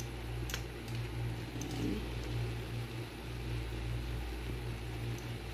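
A steady low mechanical hum under beef bulgogi cooking on low heat in a nonstick frying pan while metal tongs turn the meat. There is one sharp click about half a second in.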